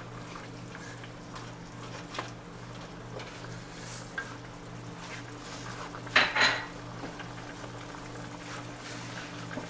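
A metal utensil clinking and scraping against a cooking pot, with a louder clatter about six seconds in, over a steady low hum.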